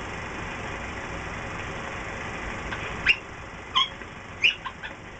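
Steady hiss of an old film soundtrack, with a handful of short, high squeaks that slide upward, starting about three seconds in.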